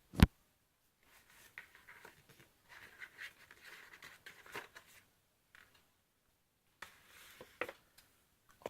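Packaging being handled during an unboxing: a sharp knock just after the start, then intermittent scraping and rustling with small clicks.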